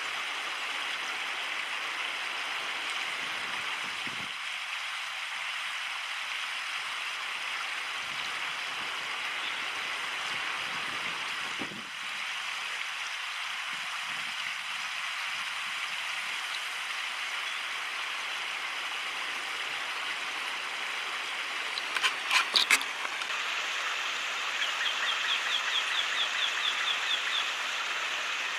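Steady rush of a flowing stream. A few sharp clicks come about 22 seconds in, and a quick run of high chirps, about six a second, comes near the end.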